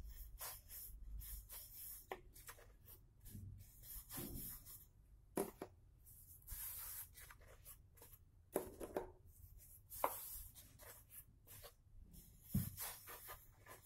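Wooden rolling pin rolling out a potato-stuffed paratha on a wooden board: quiet rubbing with scattered light knocks and taps of wood on wood as the pin is handled and dry flour is dusted on.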